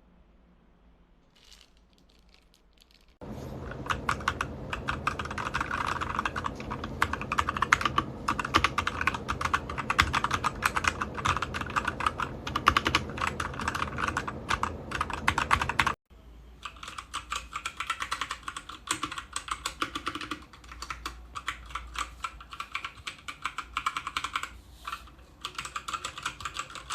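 Machenike K500 mechanical keyboard being typed on fast, a dense stream of key clicks and clacks. The typing starts about three seconds in, breaks off abruptly about two-thirds of the way through, and picks up again sounding thinner.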